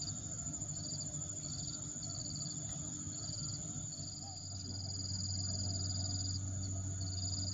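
Insects trilling in short high bursts a little under a second apart, with one longer trill of about two seconds partway through, over a steady high-pitched insect whine.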